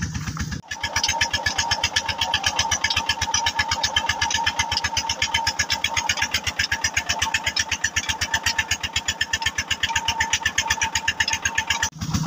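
Single-cylinder diesel 'Peter' engine driving a tubewell pump, running with a fast, even beat of about nine strokes a second and a steady tone over it. It starts abruptly just under a second in and cuts off just before the end.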